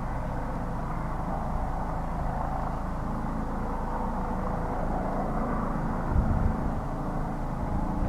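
Helicopter running, a steady low-pitched rotor and engine noise with a fast low pulsing.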